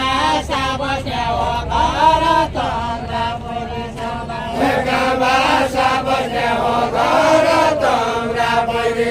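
Voices singing a Deuda, the Far-Western Nepali folk song, in a chant-like melody with long held notes and several voices overlapping.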